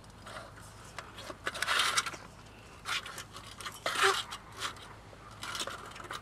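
Handling noise of a small folding stainless-steel Firebox Nano camp stove being set down and fitted on an aluminium camp table: a series of scrapes, clicks and metal clatters, loudest about two and four seconds in.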